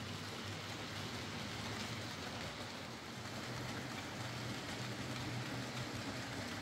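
Hornby Class 4F OO gauge model locomotive, driven by the motor in the engine, running along the layout on a test run after repair with a train of freight vans. A steady low motor hum under the even rolling noise of the model wheels on the rails.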